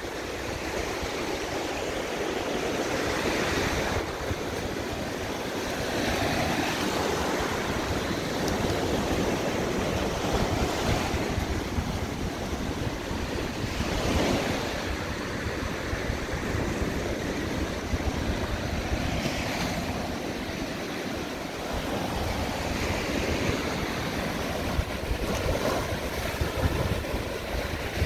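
Ocean surf washing onto the beach, the hiss swelling and easing as waves break every few seconds, with wind rumbling on the microphone.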